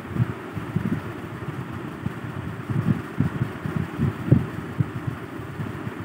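A fork mashing boiled potatoes in a glass bowl: irregular dull thuds and soft knocks as the fork presses the potato down against the bowl.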